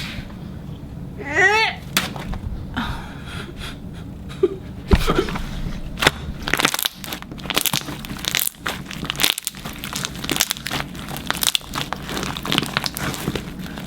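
Slime being squished and pressed by hand against a countertop, giving dense, irregular crackling and popping clicks from about five seconds in. A short high-pitched squeal comes near the start.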